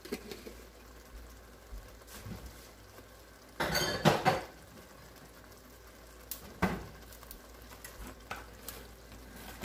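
Pot of beef goulash simmering with a faint, steady bubbling. A loud burst of clinking and knocking from pots and utensils comes about four seconds in, and a single knock a little before seven seconds.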